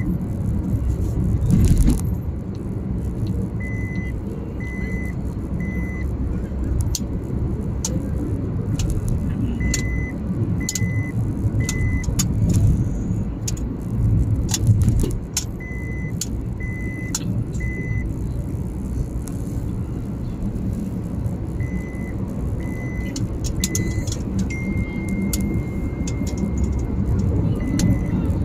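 Car cabin noise while driving along a highway: a steady rumble of tyres and engine, with scattered small clicks and rattles. Over it a high electronic beep sounds in groups of three, the group repeating about every six seconds, with one longer beep held for about two seconds near the end.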